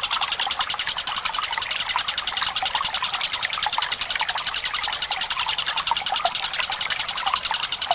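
Tengkek buto bird rolling its call in one long, unbroken trill: a fast, even run of high notes at about ten a second. Trickling water sounds faintly underneath.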